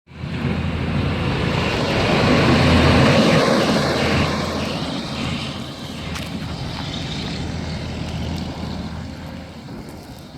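Wind in a snowstorm buffeting the microphone with a loud low rumble and rush. It swells to its loudest about three seconds in, then eases.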